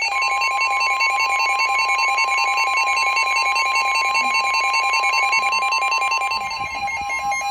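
NOAA Weather Radio's 1050 Hz warning alarm tone, a steady high tone that starts at the beginning, sounding over a rapidly alternating electronic beeping alarm. The tone heralds a severe thunderstorm warning.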